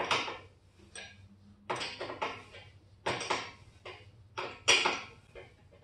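Steel hand wrench clinking on a bolt and the buggy's steel tube frame: about half a dozen sharp metallic clanks at uneven intervals as a 17 mm bolt on the front suspension is worked loose.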